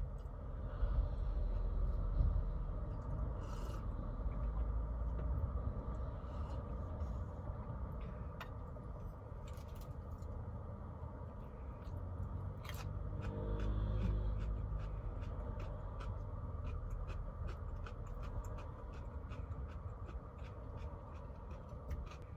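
A person eating: sipping from a wooden bowl, then chewing, with small chopstick clicks and taps on the tableware that come thick and fast near the end. A low rumble sits underneath.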